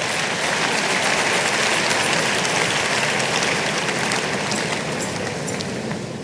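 Congregation applauding after the punchline, building over the first second and holding steady.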